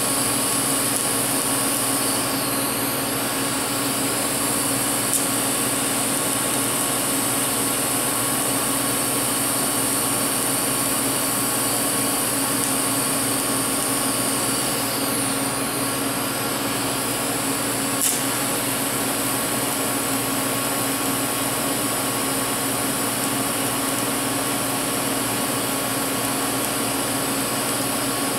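TIG welding arc hissing steadily on a broken bolt stub in an exhaust manifold, the welder set at 200 amps, with a steady hum under it and a couple of faint clicks.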